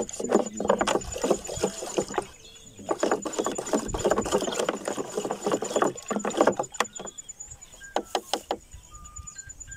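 Water sloshing and splashing inside the open plastic tank of a 16-litre pressure sprayer as a stick stirs it, mixing a crop-protection product evenly into the water. The stirring eases for a moment about two seconds in and dies down about seven seconds in, leaving a few faint clicks.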